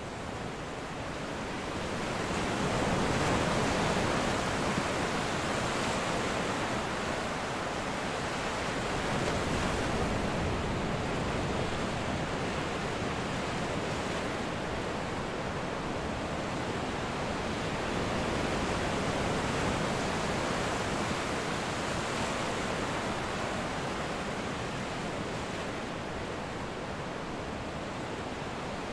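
Ocean surf washing onto a sandy beach: a steady rush of breaking waves that builds over the first few seconds and swells and eases now and then.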